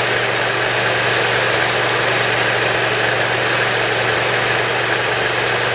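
Briggs & Stratton Intek V-twin engine running at a steady, even speed with no surging, its surging cured by valve lash, carburetor jet and governor adjustments.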